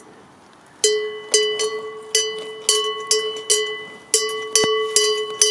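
A cow's round metal neck bell clanking as the grazing cow moves its head: irregular strikes, about two to three a second, each ringing on the same note, starting about a second in.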